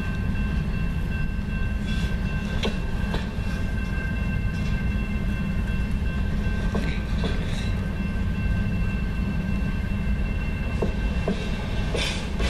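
Double-stack container train on well cars rolling slowly past at close range: a steady low rumble of wheels on rail with scattered clicks and clanks, more of them near the end, and a steady high-pitched tone above it.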